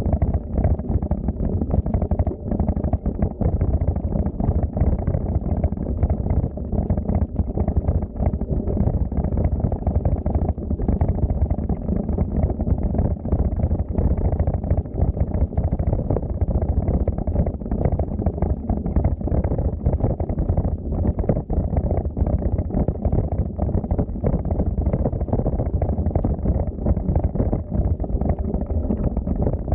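Steady low rumble of wind buffeting the microphone while riding a bicycle, with rapid small jolts from the tyres and frame over the path.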